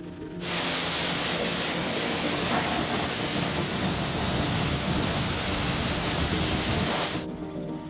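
Pressure washer spraying, a loud steady hiss that starts abruptly about half a second in and cuts off near the end.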